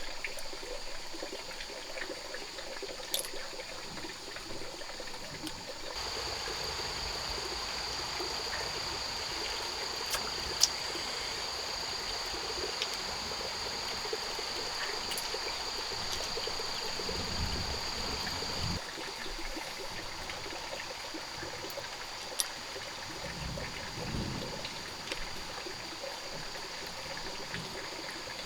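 Water trickling and running steadily, like a small stream. A steady high-pitched whine sounds over it for about thirteen seconds in the middle.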